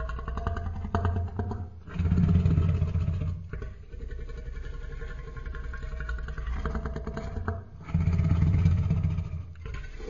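Custom Indominus rex sound effect: a deep, rumbling dinosaur growl that swells twice into a loud, low bellow, about two seconds in and again about eight seconds in, with quieter rasping growls between.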